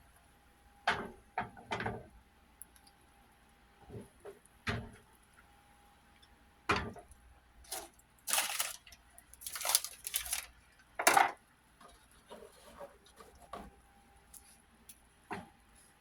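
Kitchen handling sounds: scattered knocks and clicks of utensils and cookware, with a few short scraping sounds about halfway through.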